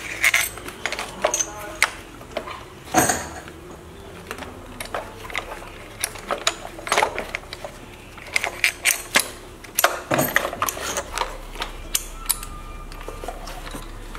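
Irregular metal clicks and clinks as hands work a bolt-on fuel-injector puller and its clips on the engine's valve cover, with a sharper knock about three seconds in and another near ten seconds.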